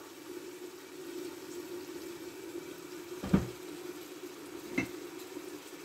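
Onions, garlic, spices and diced tomato frying gently in a clay tagine: a faint sizzle over a steady low hum. Two soft knocks come about a second and a half apart past the middle.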